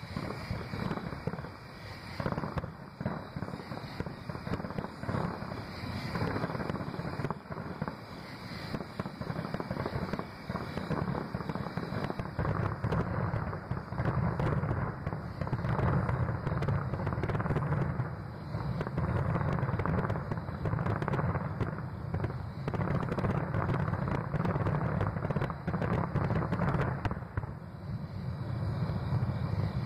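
Fireworks going off in a dense, rapid barrage of bangs and crackles that run together. The barrage grows louder over the first dozen seconds, then stays heavy.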